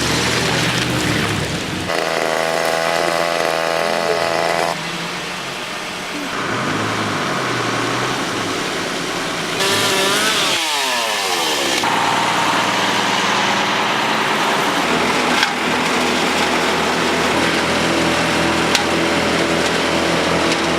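Engines and power equipment of a storm cleanup running, chainsaws among them, in a string of short clips that change abruptly every few seconds. About ten seconds in, one engine sweeps up and down in pitch.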